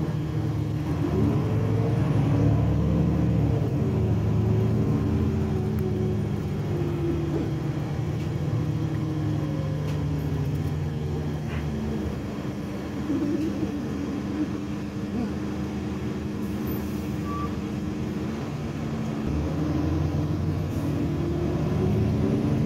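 Irisbus Citelis Line city bus heard from inside the cabin, its engine and drivetrain droning steadily as it drives. The pitch rises and falls with its speed and climbs again near the end as it pulls away.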